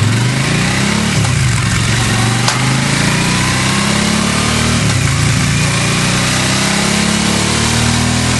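2014 Suzuki V-Strom DL1000's V-twin engine running through a Mivv Speed Edge aftermarket silencer, its revs rising and falling twice.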